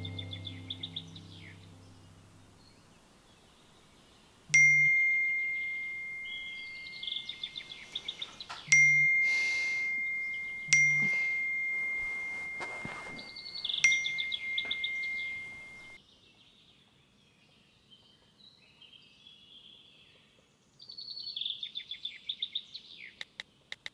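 Four phone message-notification dings, each a clear bell-like tone that rings on and slowly fades, with birds chirping in short trills between them. Soft music fades out in the first couple of seconds.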